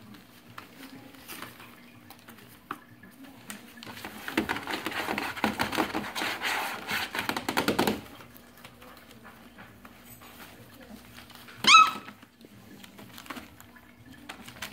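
Labrador puppies scrabbling and tussling on newspaper, the paper rustling and crinkling for several seconds in the middle. Near the end a puppy lets out one short, high-pitched yelp.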